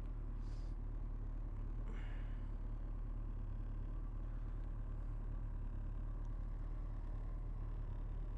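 Kawasaki ZX-14's inline-four engine running steadily at low revs while the bike is ridden slowly on a cold engine, an even low hum with no revving.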